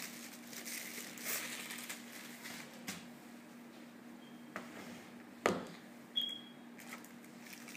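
Phone packaging being handled during an unboxing: soft rustling of box and paper with a few sharp clicks and taps, the loudest about five and a half seconds in.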